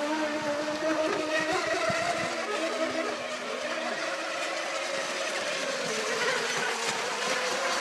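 Electric radio-controlled racing boats running flat out, their motors making several steady whines at different pitches over the hiss of spray. Two of the lower whines stop about halfway through, while the highest slowly sinks in pitch.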